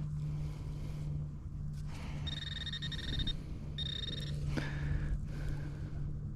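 Metal-detecting pinpointer sounding its electronic alert tone twice, about a second and then half a second long, as it is probed into a hole close to a buried target, here a silver dime. A sharp click about halfway through, over a steady low hum.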